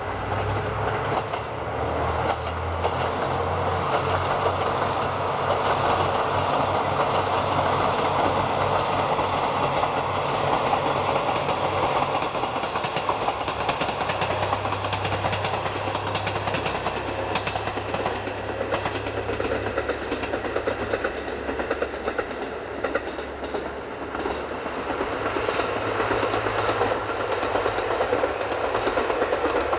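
KiHa 183 series diesel railcar train running past, its diesel engines humming low over the steady noise of wheels on the rails. The engine note swells and fades a few times as the train goes by.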